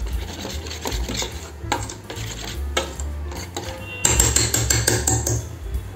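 Wire whisk beating thick gram-flour pakora batter in a steel bowl: quick clicks and scrapes of the wires against the metal, louder and denser about four seconds in.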